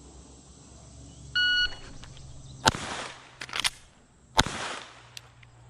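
A shot timer beeps once, then a Glock 44 .22 LR pistol fires several shots: a first crack more than a second after the beep, a quick pair, and a last shot. The slow first shot is what the shooter calls taking too long to get that first shot off.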